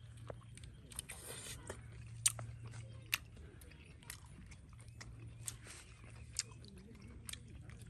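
A person eating grilled duck: chewing and biting, with short crunchy clicks at irregular intervals.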